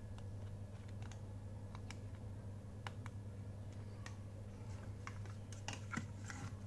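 Small plastic clicks and taps from fingers on the buttons and case of a camera flash and its wireless trigger, a few scattered at first and then a quick cluster near the end, over a steady low hum.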